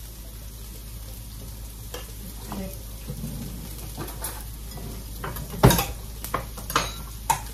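Chopped onion and garlic sizzling steadily in oil in a frying pan. Over the second half, a few sharp clicks and knocks as a kitchen cutlery drawer is opened and utensils are handled, the loudest a little before six seconds in.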